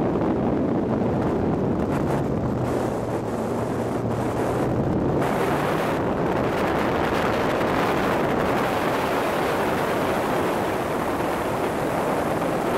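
Turbocharged Nissan S13 Silvia driven hard on a circuit lap: a steady mix of engine and road noise with wind buffeting the microphone. The sound turns brighter and harsher about five seconds in.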